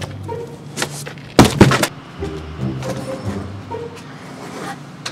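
Background music with low sustained notes, and a loud, brief noisy rush about a second and a half in.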